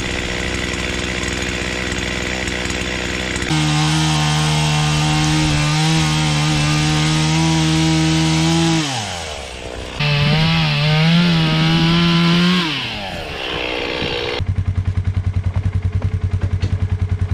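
Gasoline chainsaw running at idle, then opened to full throttle about three and a half seconds in and cutting through a cedar log for about five seconds before the revs fall away; it is throttled up again for a second, shorter cut of about three seconds. Near the end a utility vehicle's engine idles with a steady, even pulse.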